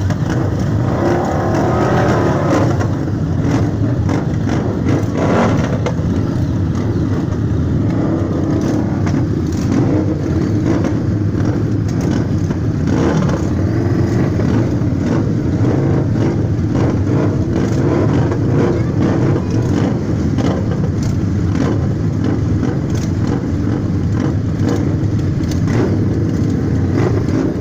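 Several Harley-Davidson V-twin motorcycle engines running together, loud and continuous.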